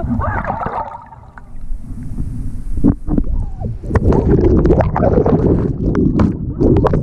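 Water heard underwater through a waterproof camera: a steady, muffled low rumble of moving water, joined from about four seconds in by busy bubbling and crackling as a stream of bubbles passes the camera.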